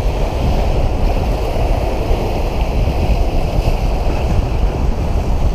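Steady wind noise on the microphone over surf washing against a rocky shoreline.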